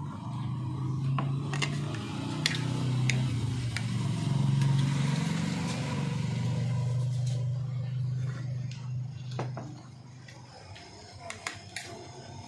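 A motor engine hums steadily, louder in the middle and fading out about ten seconds in, with a spoon and fork clinking against a plate now and then.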